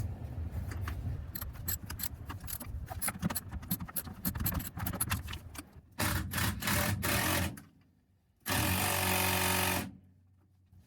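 Seatbelt mounting bolt being tightened: several seconds of rapid clicking, then two short steady runs of a whirring motor, each about a second long, the first stopping a second before the second starts.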